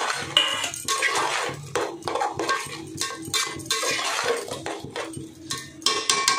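A metal spoon stirring vegetables frying in a cooking pot, scraping and clinking against the pot with irregular repeated strokes.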